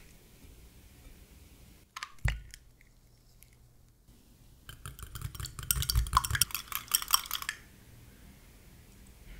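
An egg being beaten in a small glass cup: the utensil clicks rapidly against the glass for about three seconds, from about halfway through. A couple of sharp knocks come first, about two seconds in.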